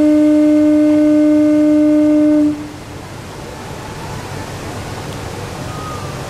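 Diesel railcar KM-101 'Okuhida 1' of the Kamioka Railway sounding its horn in one long, steady, single-pitched blast that cuts off about two and a half seconds in. A steady, quieter hiss follows.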